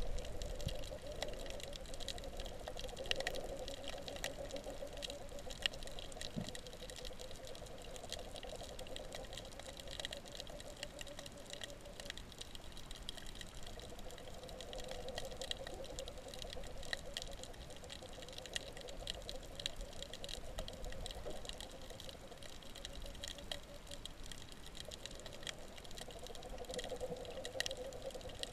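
Underwater crackling: many sharp, irregular clicks and pops, which the uploader takes for fish making noise. A wavering hum swells and fades beneath it in long stretches.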